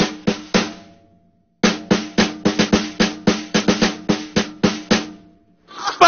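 A drum hung on a neck strap, beaten with two wooden sticks in quick strokes of about five or six a second. It stops about half a second in, starts again after about a second and runs on until near the end.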